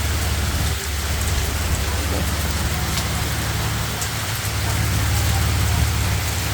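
Hail falling and hitting surfaces: a dense, steady patter with scattered sharper ticks, over a steady low rumble.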